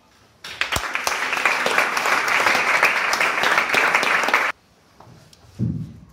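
An audience clapping for about four seconds, then stopping abruptly, followed by a short low thump near the end.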